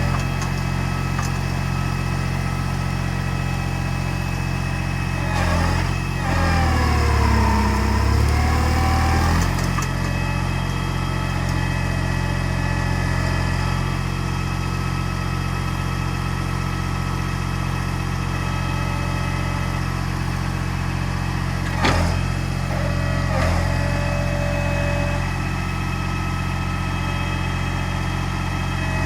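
Valtra A93 tractor's diesel engine running steadily while powering a Hypro 755HB processor; about five seconds in it pulls down under hydraulic load for several seconds, the pitch dipping and then recovering. A sharp knock sounds a little past halfway, with a smaller one just after.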